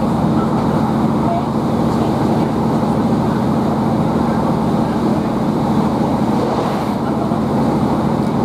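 Class 153 diesel multiple unit at speed, heard inside the passenger saloon: the underfloor Cummins diesel engine running with a steady hum, mixed with the constant rumble and rush of wheels on rail.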